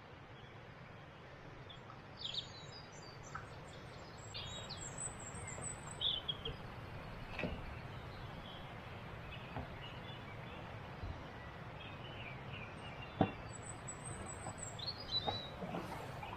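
Songbirds chirping and singing in short phrases over steady low background noise, with a few sharp knocks, the loudest about three-quarters of the way through.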